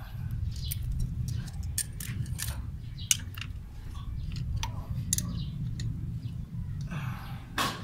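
Irregular small metal clicks and taps of hand tools working a Toyota 4K engine's valve rocker adjuster and lock nut while the valve clearance is set, with a sharper click about three seconds in and a short scrape near the end. A steady low rumble runs underneath.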